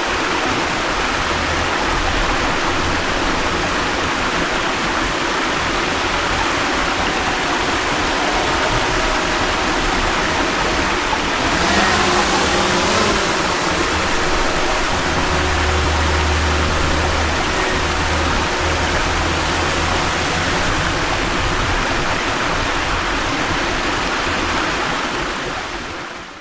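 Waterfall and stream water rushing steadily, a constant loud hiss of falling water.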